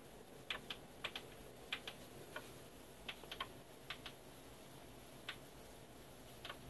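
Faint, irregular light clicks, about a dozen and some in quick pairs, over a quiet steady hiss.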